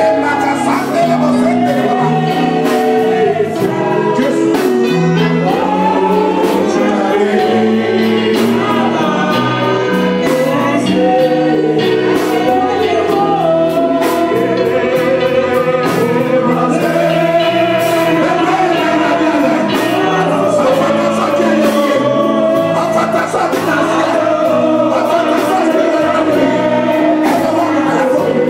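Gospel choir and congregation singing with instrumental backing, a steady beat underneath.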